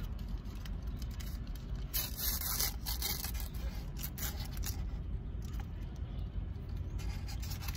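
Paper wrapper of a sushi burrito rustling and crinkling as it is peeled back by hand, loudest about two to three seconds in, over a low steady rumble.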